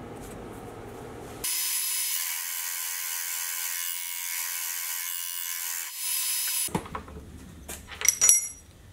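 A small milling machine cutting a steel block, a loud steady high-pitched machining noise starting about a second and a half in and stopping a little past the middle, then a few light metallic clicks and clinks as the part is handled in the vise.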